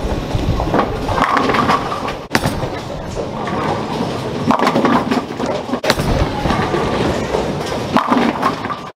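A bowling ball rolling down a wooden lane over bowling-alley din, then crashing into the pins near the end.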